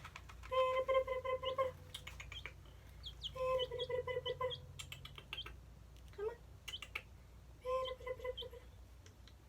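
Baby chicks peeping with short, high, rising chirps, over light tapping and scratching clicks in the cedar shavings. Three times, a longer, lower, raspy trilling call lasts about a second each.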